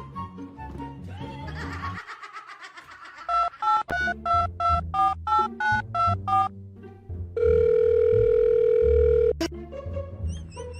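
Background music, then a quick run of short electronic beeps at changing pitches, about three a second, followed by one long steady beep that is the loudest sound.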